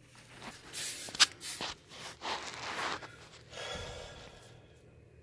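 Rustling and scraping of a person shifting his body in a cramped crawlspace, with a sharp knock about a second in.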